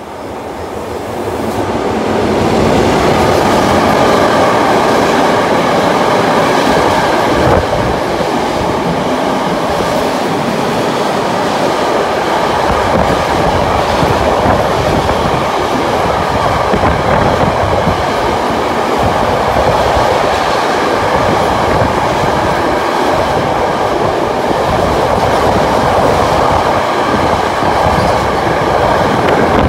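Freight train of double-deck car-carrier wagons loaded with new cars running through a station at speed. The sound builds over the first two seconds as the electric locomotive comes by, then holds as a loud, steady wheel-on-rail noise while the wagons pass.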